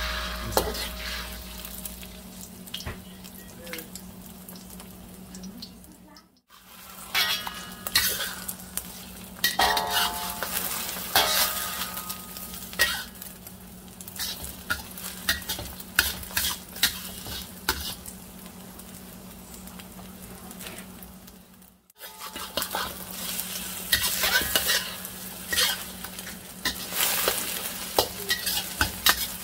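Eggs sizzling in hot oil in a wok while a metal wok spatula scrapes and clacks against the pan, stirring and breaking them into scrambled curds. The sound cuts out briefly twice.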